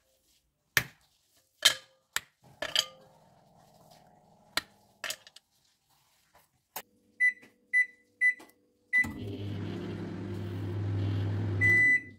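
A dark chocolate bar snapped by hand into squares that drop into a glass bowl, with several sharp clicks. Then a microwave oven's keypad beeps five times, the oven hums as it runs, and near the end it gives its long end-of-cycle beeps.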